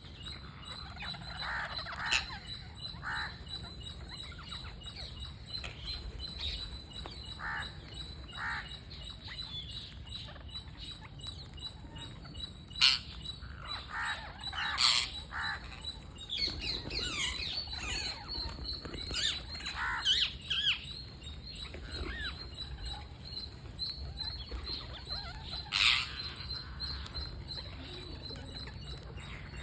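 Green parrots calling: scattered short squawks and chirps, with the loudest sharp calls about 13, 15 and 26 seconds in, over a steady low background rumble.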